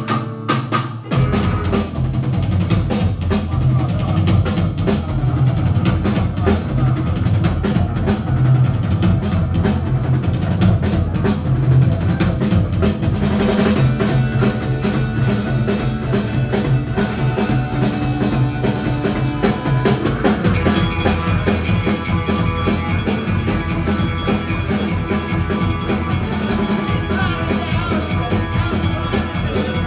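Live rock band playing a fast, driving song: electric guitars and bass over a steady, rapid drum beat, with an extra percussionist hitting a standing drum with sticks. The guitars grow brighter about two-thirds of the way through.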